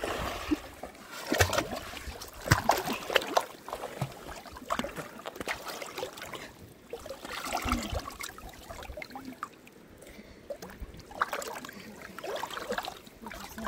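River water splashing and sloshing as people wade and swim through it, with irregular small splashes from arms and bodies moving in the water.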